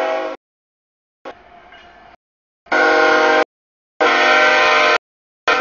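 Freight locomotive's multi-chime air horn sounding in four loud blasts, each under a second to about a second long, that start and stop abruptly with dead silence between. A fainter blast comes about a second and a half in.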